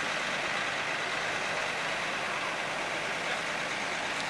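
Steady engine noise of an idling truck.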